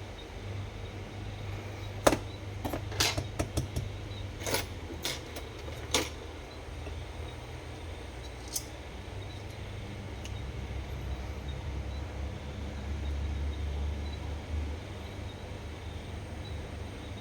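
Small metal reel parts and tools clicking and tapping as a Daiwa Steez SV TW baitcasting reel is taken apart. There is a quick cluster of sharp clicks about two to six seconds in and one more a little later, over a low steady hum.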